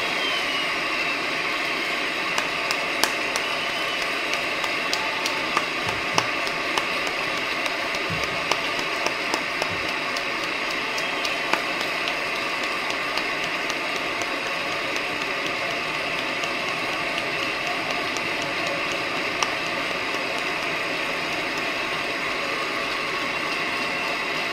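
Audience applauding steadily, with scattered sharper claps standing out in the first half.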